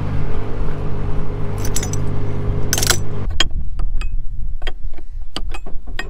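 Combine harvester running with a steady low hum that cuts off abruptly about halfway through. It is followed by a string of irregular sharp clicks and light metallic rattles.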